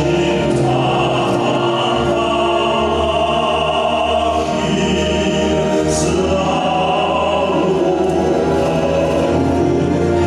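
Choir singing slow music with long, held notes at a steady level.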